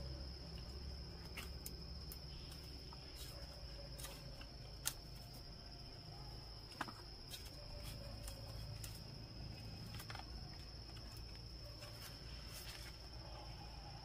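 Insects shrilling in a steady high tone, over scattered light clicks and knocks from green bananas being handled and stacked into a woven basket; two sharper knocks come about five and seven seconds in.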